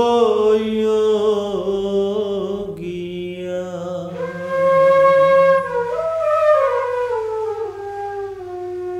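Flute playing an ornamented melodic interlude in a Baul song, its long phrases sliding between notes and winding downward in pitch toward the end.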